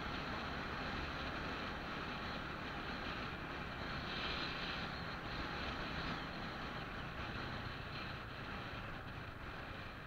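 Steady wind rush and road noise from a moving vehicle, over a low rumble, easing slightly near the end.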